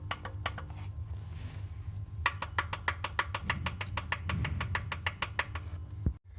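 Opel Corsa OPC 1.6 turbo engine running with a rapid, even metallic knocking, about seven knocks a second, over a steady low hum. The knocking pauses briefly about a second in and resumes. This is piston knock from worn pistons in their bores, worst when the engine is cold, which led to the block being bored to a repair size.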